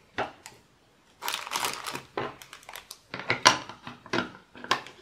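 Paper and plastic craft materials rustling and crinkling as they are handled, in irregular bursts with a short pause near the start and a sharp click about three and a half seconds in.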